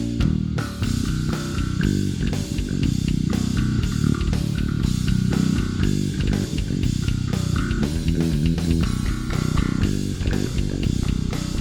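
Warwick Thumb bolt-on five-string bass playing a riff through a Neural DSP B7K cab simulator with flat EQ, over a drum-kit backing track.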